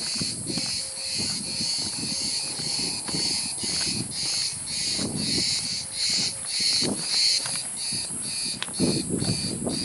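Cicadas buzzing in a steady, even pulse, about two to three beats a second, over a low rumble.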